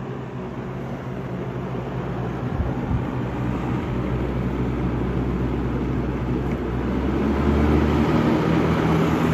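First-generation Lakewood box fan running: a click about three seconds in, then its motor hum and blade whoosh grow steadily louder as it speeds up to a higher setting.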